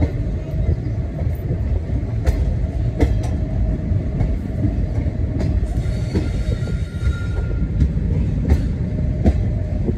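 Passenger train coach rolling along a station platform, heard from an open coach window: a steady low rumble with irregular sharp wheel clicks over the rail joints. A brief thin metallic squeal comes in about six seconds in and fades out about two seconds later.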